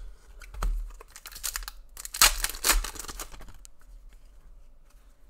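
Rugby league trading cards and their packaging being handled: a run of rustling and scraping with small clicks, loudest about two seconds in, then fading off.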